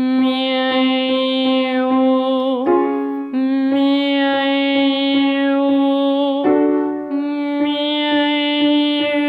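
A woman's trained voice singing long held notes on one vowel as a maschera (forward-resonance) vocal exercise, moving to a new note about 3 seconds in and again about 6.5 seconds in, over a piano playing repeated chords about two to three times a second.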